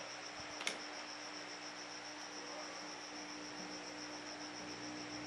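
An insect's steady, evenly pulsing high trill over a faint low steady hum, with one short click about 0.7 seconds in.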